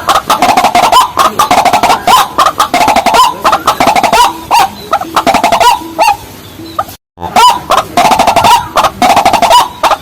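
Rapid, loud, repeated clucking calls of a white-breasted waterhen, going on without pause except for a quieter stretch and a sudden brief dropout about seven seconds in.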